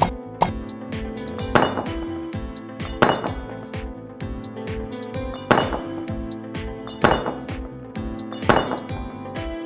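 Background music with a steady beat, over about five sharp clinks of miniature clay bricks being set down one at a time onto a plastic toy trailer bed.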